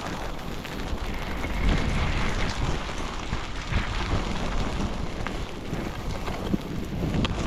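Wind buffeting the microphone: a steady rushing noise with a low rumble underneath.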